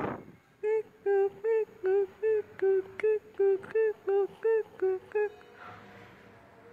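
Playback track for a mime act: a run of about fifteen short, evenly spaced pitched notes at one pitch, about three to four a second, stopping about five seconds in.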